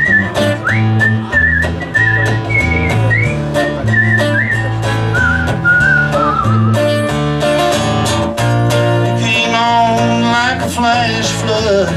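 Country song instrumental break played live: a whistled melody with vibrato over strummed acoustic guitar and electric bass, then a lead line with bent notes takes over about seven seconds in.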